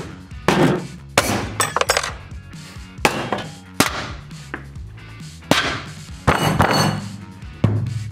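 Metal being struck by hand for foley, a series of sharp clanks at irregular intervals, about ten in all, each ringing briefly, with a few quick hits close together about two seconds in.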